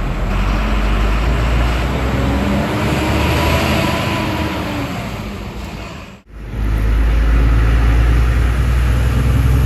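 Tata 4830 sixteen-wheel truck under way: wind and road noise rushing past the open cab window over the engine. After a cut about six seconds in, a steady low engine drone heard inside the cab.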